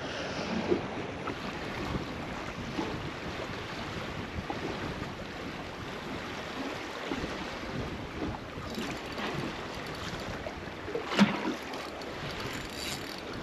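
Water lapping against a boat's hull, with wind on the microphone, as a steady wash of noise. A single sharper knock sounds about eleven seconds in.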